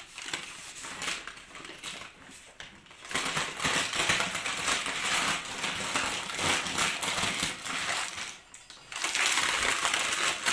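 Plastic blister packaging crinkling and small toy kitchen pieces clicking and clinking as they are handled and taken out of the pack. The handling is quieter at first, gets louder about three seconds in, and pauses briefly near the end.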